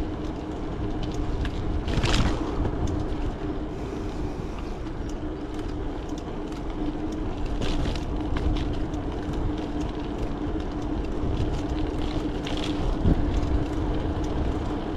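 Riding noise of a bicycle on a paved path: wind rumbling on the handlebar camera's microphone and tyres rolling, with a steady hum and small rattling clicks. A brief louder rustle about two seconds in.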